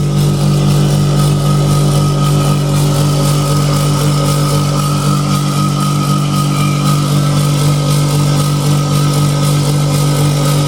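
Viessmann Vitocal 200 heat pump compressor running with a loud, steady low hum and a fainter high whine above it, with strong vibration and noise: the compressor is faulty, though the heat pump still delivers heat.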